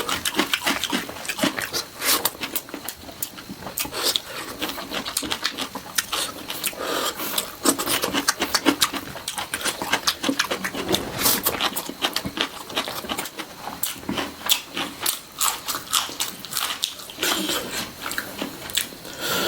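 Close-miked chewing and lip-smacking as a person eats a desi chicken leg off the bone: many quick, irregular wet clicks and smacks.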